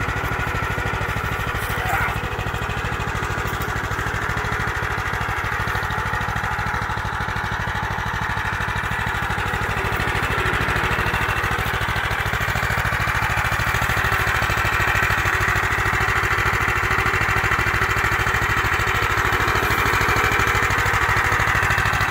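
DuroMax 440cc single-cylinder go-kart engine running steadily, getting a little louder from about halfway through.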